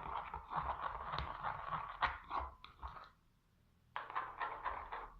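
Glue and body lotion being stirred together in a bowl with a mixing utensil: irregular stirring noises, with a pause of under a second about three seconds in.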